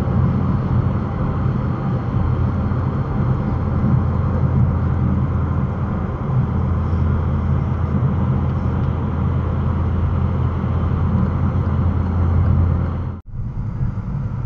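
Steady road and engine drone inside a car's cabin at motorway speed, recorded by the dashcam's microphone. About 13 seconds in it cuts off abruptly, giving way to quieter cabin noise of the car rolling slowly.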